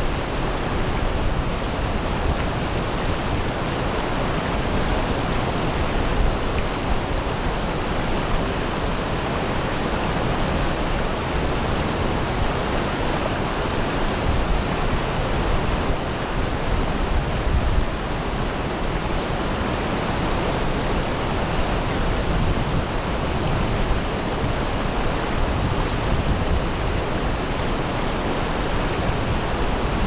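Shallow mountain stream flowing over stones and a small riffle: a steady, even rush of water.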